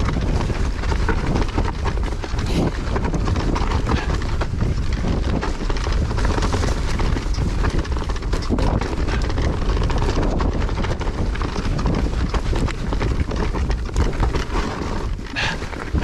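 Mountain bike on a fast singletrack descent: wind rumbling over the rider-mounted microphone, with the tyres rolling over dirt and the bike clattering and rattling over roots and bumps.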